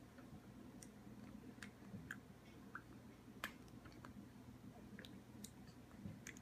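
Faint, wet mouth clicks and lip smacks from a baby chewing and mouthing a mouthful of food, about ten scattered ticks over a low steady room hum.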